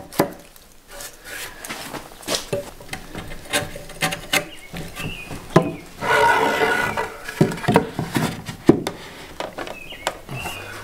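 Wide chisel paring and scraping wood in an angled pocket cut into a timber beam: a run of short, sharp scrapes and knocks. About six seconds in a longer rubbing scrape, then a wooden corner brace knocks and rubs as it is fitted into the pocket.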